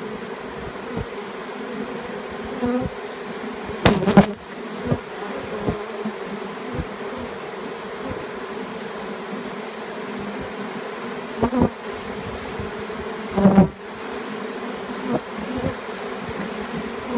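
Honeybee swarm buzzing: the steady hum of many bees flying close around the microphone, with a few brief louder noises, the loudest about four seconds in and again about thirteen seconds in.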